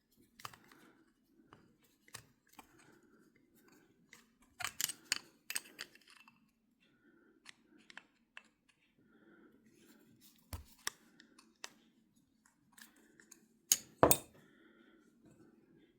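Small metal parts of an Abumatic 150 spincast reel clicking and scraping as it is worked apart with a screwdriver, its two tiny screws being taken out. The clicks are scattered and sharp, with a louder cluster about five seconds in and two loud clicks near the end.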